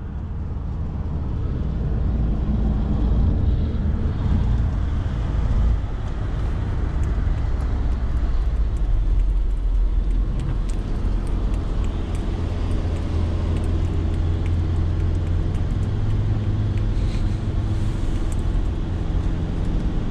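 Steady low drone of road and engine noise heard inside a passenger van cruising on a motorway, fading up over the first couple of seconds and then holding steady.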